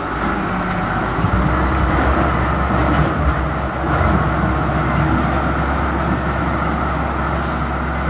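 Diesel engine of a wheel loader running steadily as the machine drives and turns, a continuous low engine hum with no breaks.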